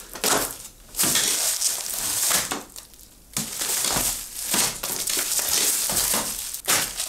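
Packaging being handled and unwrapped by hand, crinkling and rustling in two long stretches with a short pause about three seconds in.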